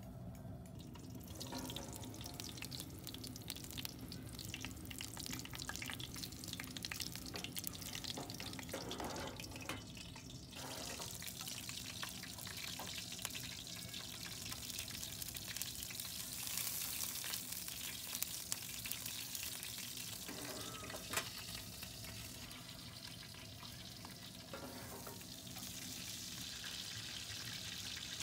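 Pork belly slices sizzling and spitting in a stainless steel tray in a wood-burning camp stove's oven drawer, a steady crackling hiss. Scattered clicks run through it, with one sharp click about three-quarters of the way through.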